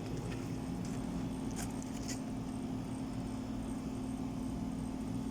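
Air conditioner running with a steady hum, its compressor and fan working on a newly replaced capacitor, with two faint ticks about two seconds in.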